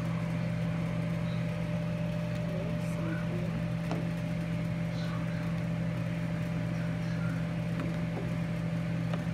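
Steady low hum of a kitchen appliance motor or fan, with a faint clink or two of a ladle against the pot.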